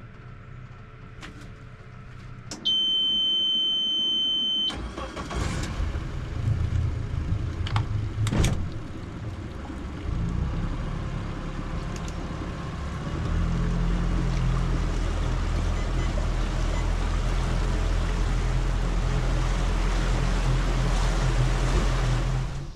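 Boat outboard motor's key-on warning horn beeping steadily for about two seconds, then the motor cranking, catching and running. From about halfway it settles into a louder, steady drone, which stops suddenly at the end.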